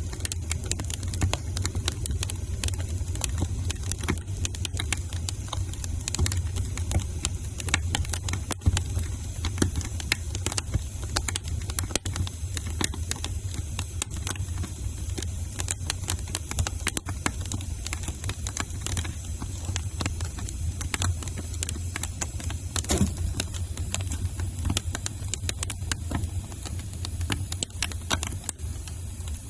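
Wood fire crackling in a fireplace: dense, irregular pops and snaps over a steady low rumble.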